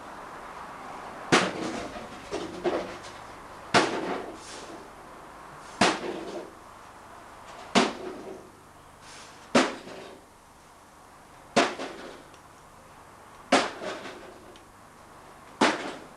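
Slow, regular sharp bangs, about one every two seconds, eight in all, each trailed by a short echo.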